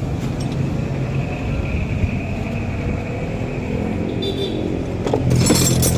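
A car engine idling steadily, a low even hum. A few metallic clinks and handling noise come in near the end.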